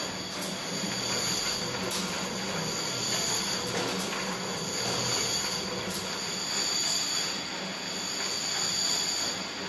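Motor-driven hexagonal steel tumbling drum turning with a load of metal parts inside, giving a steady churning rattle and grinding over a low motor hum.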